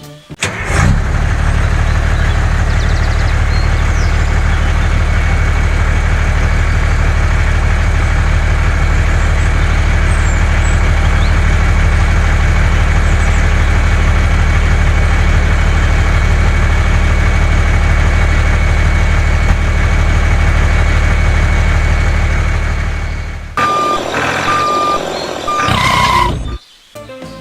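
A heavy truck's diesel engine runs steadily for about twenty seconds with a low, even rumble, then stops. Near the end two short beeps sound.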